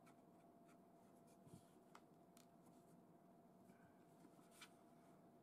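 Near silence with a few faint clicks and light knocks of plywood and pine blocks being handled and set against each other on an MDF board, over a faint steady hum.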